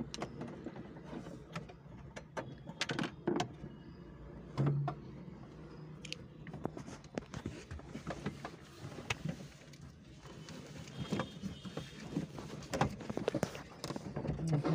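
Irregular clicks, taps and knocks of hand tools and parts being handled during work inside a car's dashboard.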